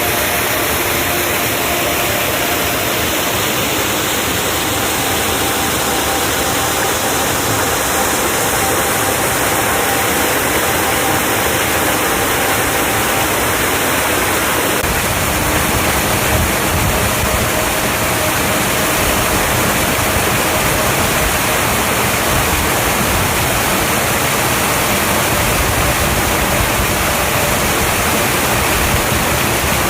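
Waterfall pouring steadily: a dense, even rush of falling water, recorded binaurally.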